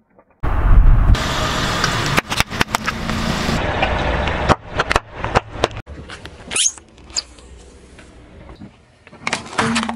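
A car's tyre rolling slowly over small gel and plastic objects on asphalt, with the engine running and a rapid string of sharp cracks and pops as they are crushed. The sound starts abruptly about half a second in and changes suddenly several times at edit cuts, growing quieter in the second half.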